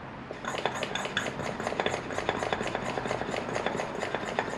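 Hand vacuum brake bleeder drawing fluid off a motorcycle's rear brake caliper bleed nipple: a fast run of sharp clicks, about six a second, starting about half a second in.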